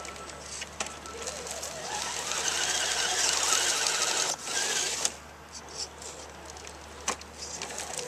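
Electric motor and gears of an Axial SCX10 radio-controlled rock crawler whining as it drives up onto a rock, the pitch rising about two seconds in and the whine cutting off about five seconds in. A couple of sharp clicks.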